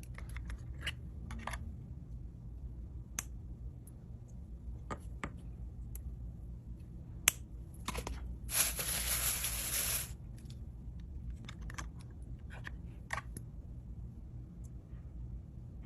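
Packaging being handled and opened: scattered light clicks and taps, with a paper rustle lasting about a second and a half a little past halfway.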